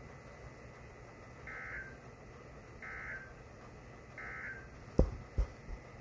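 Weather radio sounding three short bursts of EAS/SAME digital data, the end-of-message code that closes an alert. The buzzy bursts come about a second and a half apart. Two sharp thumps follow near the end.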